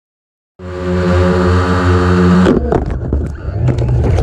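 A large FPV quadcopter's electric motors and propellers running, starting suddenly about half a second in with a steady hum, then from about two and a half seconds turning uneven with the throttle and many sharp clicks.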